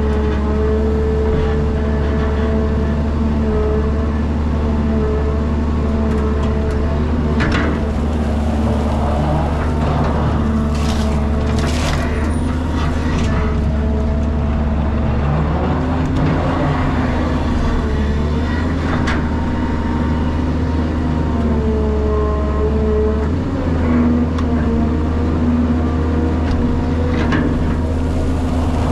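Caterpillar 320GC excavator's diesel engine running steadily under hydraulic load as it digs and swings, its pitch rising about halfway through. Near the middle comes a rushing clatter of soil poured from the bucket into a dump truck's bed, with a few scrapes and knocks of the bucket at other moments.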